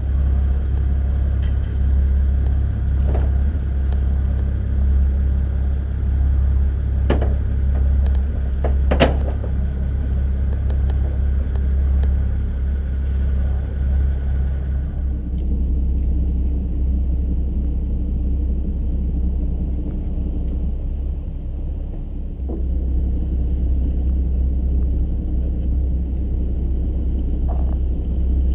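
Fishing boat's engine running with a steady low drone. A higher machine whine stops about halfway through, and a few sharp knocks sound in the first half.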